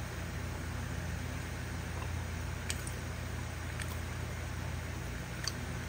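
Steady low hum with a faint hiss: room tone. A few faint clicks come about halfway through and again near the end.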